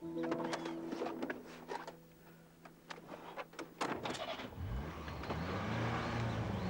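Car sounds: a run of clicks and knocks over a steady hum. About four and a half seconds in, a car engine comes up, its pitch rising and then wavering up and down.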